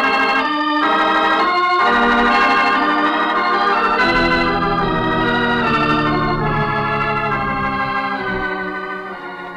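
Organ music bridge marking a scene change in a radio drama: sustained chords that change every second or so, fading out near the end.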